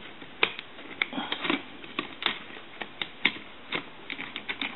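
Plastic parts of an AT&T Trimline telephone being handled and worked apart by hand: a dozen or so irregular light clicks and taps with faint rustling.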